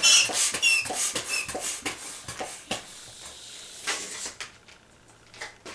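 Inflated latex 260 modelling balloon squeaking and rubbing in the hands, with sharp squeaks in the first second or so, then softer rubs and taps that die down near the end.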